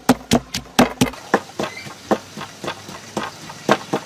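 Wooden pestle pounding garlic and chili in a wooden mortar: quick, even strikes about four or five a second, which after about a second become slower, softer and irregular.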